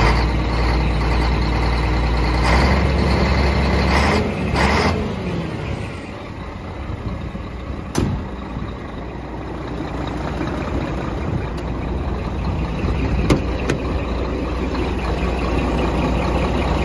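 Scania R420 truck's six-cylinder diesel engine idling, with several short air hisses from about two to five seconds in. Around five seconds the engine note falls and the low hum gets quieter, and two sharp clicks come near eight and thirteen seconds.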